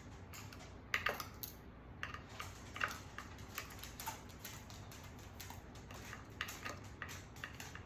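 Irregular light clicks and taps of a small hand driver working on the screws of an air rifle during disassembly, with a short cluster of sharper clicks about a second in.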